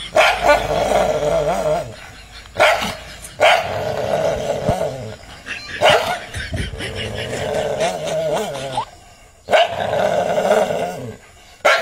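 A dog barking and growling in repeated bouts, each a sharp bark running into a long rasping snarl. It is squaring off with what it takes for another dog, its own reflection in a mirror.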